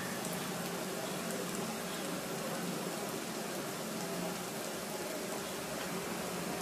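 Rava appe sizzling steadily in oil in the cups of an appe pan on a gas burner.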